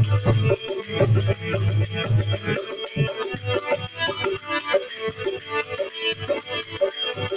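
Devotional bhajan music without words: rattling hand percussion keeps a fast, steady beat over held harmonium-like tones. A low drum sounds for the first two and a half seconds, then drops back.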